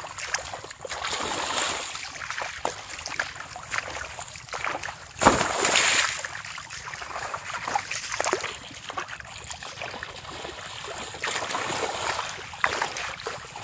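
Hands splashing and sloshing in shallow muddy water while grabbing for fish by hand, in irregular splashes with one loud splash about five seconds in.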